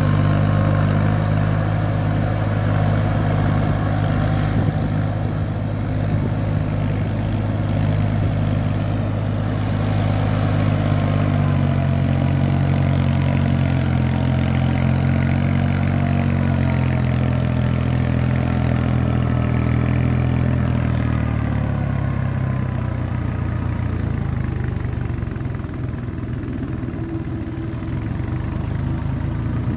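Farm tractor's diesel engine running steadily under load as it plows a flooded paddy field, its note shifting in pitch a couple of times.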